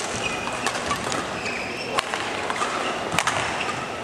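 Badminton rally: sharp racket hits on the shuttlecock about a second apart, over the steady murmur of an indoor sports hall.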